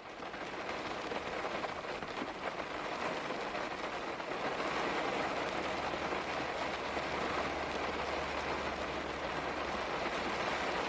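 Steady rainfall, a dense even patter of drops that swells up over the first few seconds and then holds.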